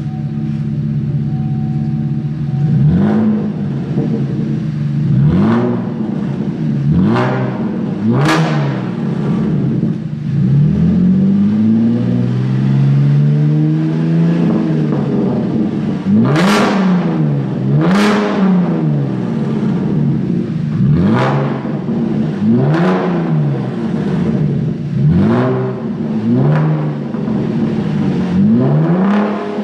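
Chevrolet Camaro V6 exhaust through an Armaflow M30 sports muffler, idling and then revved over and over in short blips, with one longer, slower rev in the middle, as a sound test of the muffler.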